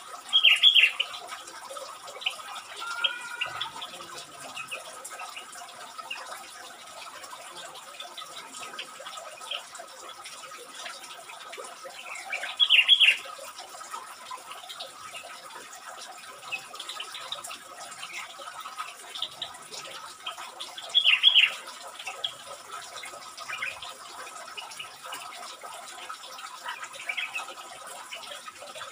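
Bulbuls calling: three loud short bubbly calls, about twelve and eight seconds apart, over faint scattered chirps and a faint steady tone.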